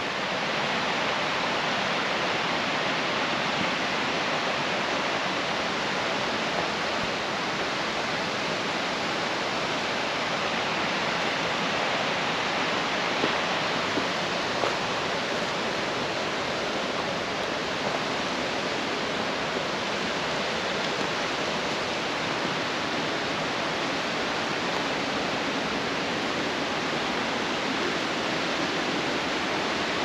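A stream rushing over rocks and small cascades: a steady, even rush of water.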